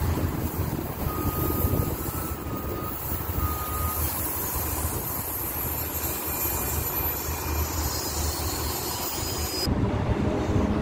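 An electric multiple-unit commuter train approaching a station platform, its rumble growing near the end, under heavy wind buffeting on the microphone. A few faint high beeps sound between about one and four seconds in.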